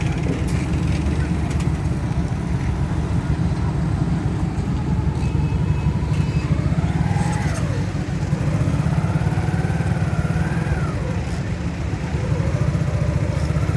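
Diesel engine of a DEMU train running with a steady low rumble.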